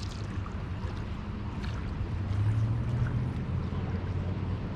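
Low, steady rumble of road traffic on the bridge overhead, swelling for about a second a couple of seconds in as a vehicle passes, over the wash of river and wind.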